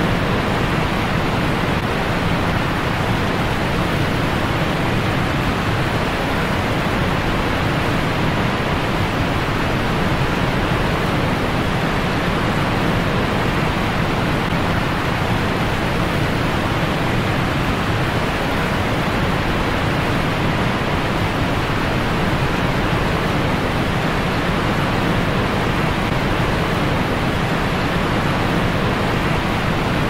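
Steady rushing of a waterfall, an even noise of falling water that does not change.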